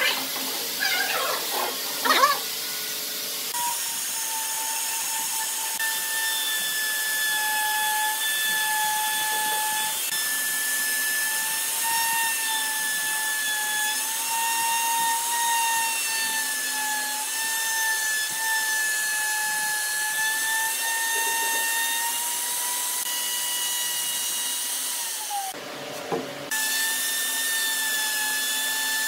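Maktec MT362 plunge router running and cutting into a wooden slab: a steady high motor whine whose pitch sags and recovers slightly as the bit takes load. It stops briefly about 26 seconds in and then runs again; a few sharp knocks come in the first couple of seconds.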